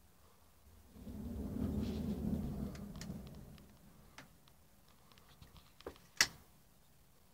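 Low rumble of steam venting from a power plant. It swells about a second in, holds for about three seconds and fades. A few sharp clicks follow, the loudest one near the end.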